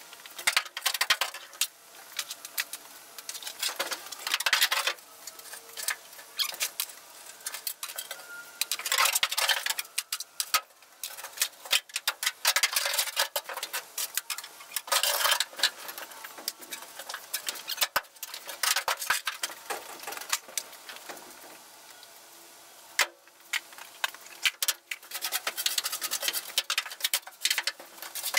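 Hand tools clicking and scraping on metal as bolts are worked loose inside a stripped car body, in irregular short spells with pauses between.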